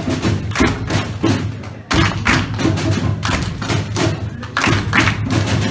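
Body percussion by a group of performers: rhythmic thuds and slaps of hands on chests and bodies, about two to three strikes a second.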